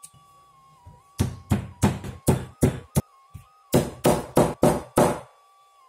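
Stone pestle smashing softened, boiled jengkol beans flat against a stone mortar (cobek). It makes about eleven sharp thuds in two runs, roughly three a second, with a short pause between them.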